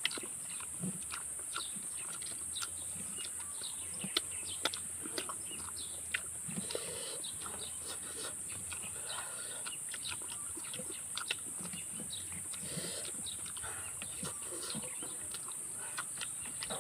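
Eating sounds: instant noodles being slurped and chewed, with many short wet mouth clicks and lip smacks scattered throughout. A steady high-pitched hiss runs underneath.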